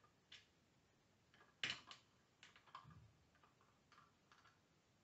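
Faint clicks and taps of small plastic toy parts being handled: a Playmobil beach parasol being worked into its sand base. The sharpest click comes about a second and a half in, with a soft knock about three seconds in.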